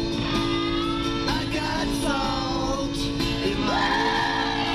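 Music with guitar and a singing voice.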